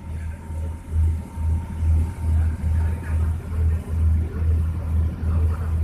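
Passenger ferry boat's engine running under way, a low throb that pulses about two to three times a second.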